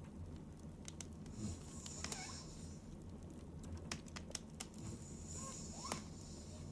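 A sleeping woman breathing, two soft hissy breaths about four seconds apart, with scattered small clicks and a low steady hum underneath.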